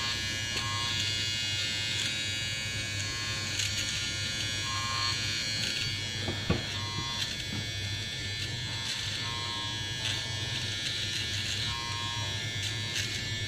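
Sonar HP-300 nose hair trimmer running with a steady buzz while trimming inside the nose, with one sharp click about halfway through.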